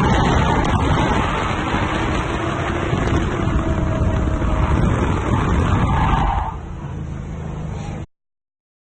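Nissan 240SX's KA24DE four-cylinder engine running loudly. The sound drops quieter about six and a half seconds in and cuts off suddenly about a second and a half later.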